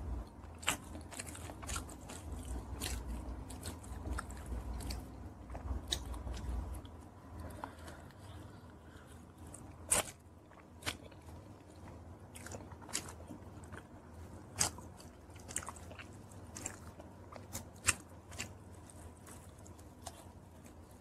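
Close-up mouth sounds of a person biting and chewing chicken wings, with scattered sharp clicks of bites and chewing. A low rumble sits under the first third and then stops.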